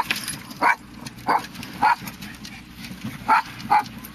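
Yorkshire terriers yapping: five short high barks, three about half a second apart, then a pause and two more close together.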